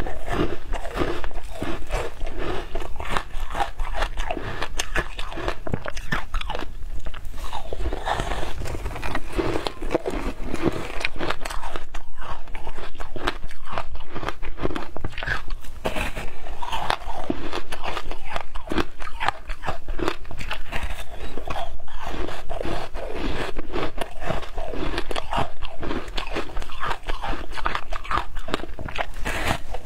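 Frozen ice topped with passion fruit pulp being bitten and chewed: many crisp crunches in quick succession.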